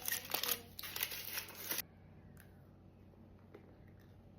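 Crackly rustling of a sweet's wrapper being handled for about two seconds, then quiet with a few faint clicks.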